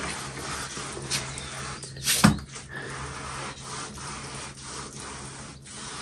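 Hand-smearing of wet mud plaster, a repeated rubbing and scraping as it is spread over a wall or clay hearth, with a sharp knock about two seconds in.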